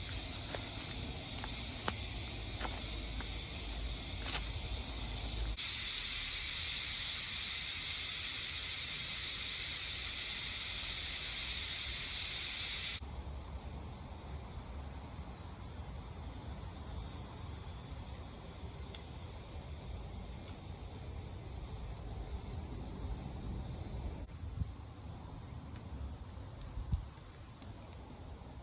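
Steady, high-pitched drone of summer insects in woodland. Its pitch and loudness change abruptly twice, about five seconds in and again near the middle.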